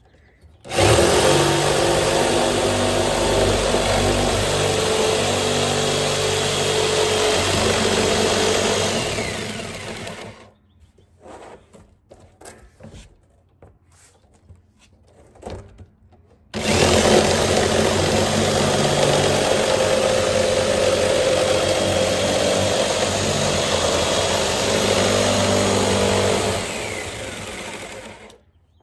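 Electric jigsaw cutting around the top of a 55-gallon barrel, run slowly. It runs twice, for about nine and about ten seconds, and in the pause of about six seconds between the cuts there are a few light knocks.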